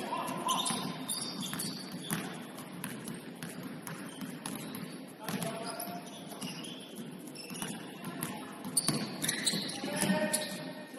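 Basketball game sounds: a ball bouncing repeatedly on the court, with scattered players' voices calling out.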